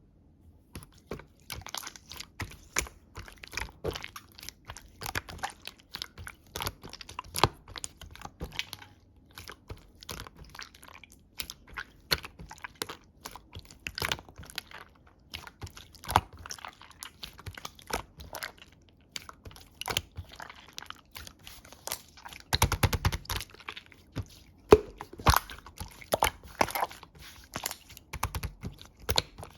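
Jelly-type slime (a 'peach jelly' slime) squished and pressed by hand, giving dense, irregular sticky clicks and pops, with a louder run of squelching and low thuds near the end.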